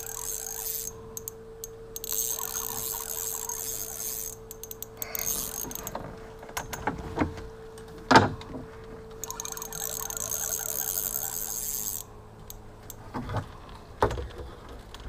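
Spinning reel being cranked in several short bursts, a whirring rattle of its gears, with a few sharp knocks, one about eight seconds in and one near the end.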